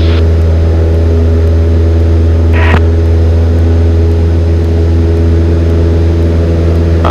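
Cessna 172N's four-cylinder piston engine and propeller droning steadily at climb power, heard from inside the cabin. A short click cuts through once, about two and a half seconds in.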